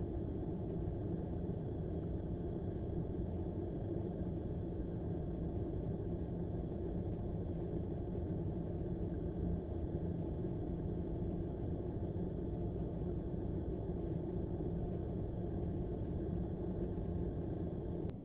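Steady low rumble of a car engine idling, heard from inside the stationary car's cabin.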